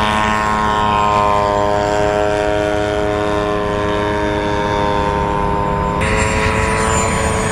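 Radio-controlled model airplane's piston engine and propeller running at high power as it passes low, the pitch dropping a little as it goes by and then holding steady as it climbs away. The sound shifts abruptly about six seconds in.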